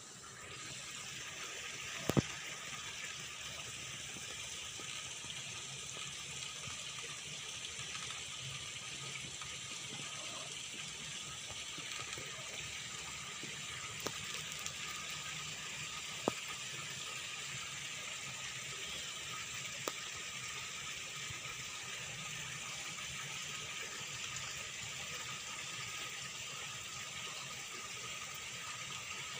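Steady rushing of water into the pond, with a sharp click about two seconds in and a few fainter clicks later.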